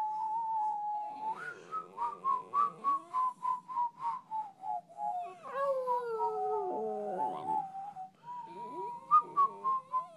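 West Highland white terrier howling: a long high note, then a run of short wavering notes about three or four a second, notes sliding down in pitch near the middle, and a steady high note again near the end.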